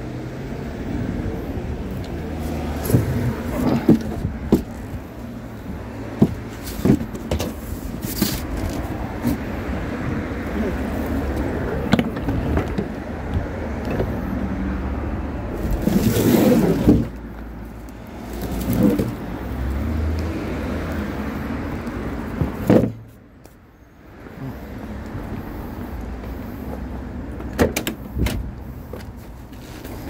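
A vehicle engine running with a steady low hum, with scattered knocks and clatters and a louder rushing burst about halfway; the hum drops away briefly a little over three-quarters of the way in, then returns.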